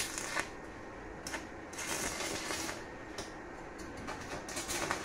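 Stick-welding arc crackling on metal in irregular spells, breaking off and striking up again a few times as the electrode rod is run along the joint.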